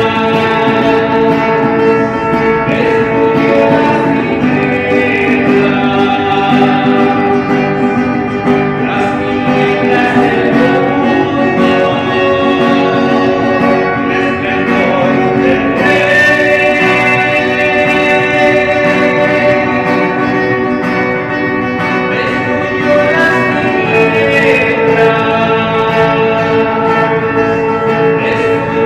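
Music with guitar playing throughout.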